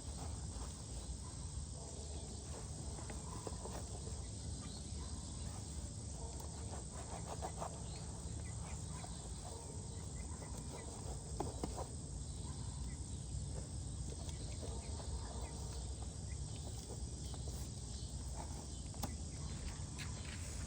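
Steady outdoor background of chirping insects over a low rumble, with a few faint scattered clicks and knocks.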